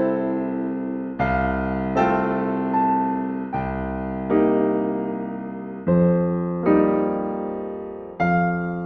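Slow, gentle solo piano music: chords struck roughly every second or so, each left to ring and fade before the next.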